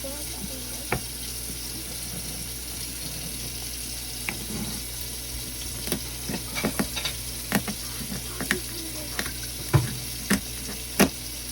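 A knife cutting through a lobster's shell on a board: isolated sharp knocks at first, then a quick irregular run of knocks and cracks in the second half, over a steady hiss.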